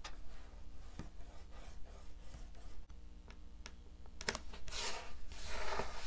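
A glue stick rubbed on the back of a printed cardstock image, with the card and book pages handled on a tabletop: a few light taps and clicks, then paper rustling about five seconds in.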